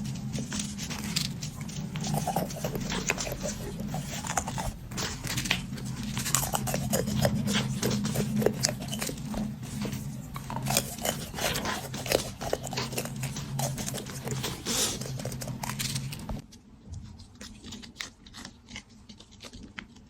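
Close-up eating of sweets: wet chewing and biting with many quick sticky clicks and crunches, over a steady low hum. Both the chewing and the hum stop about 16 seconds in.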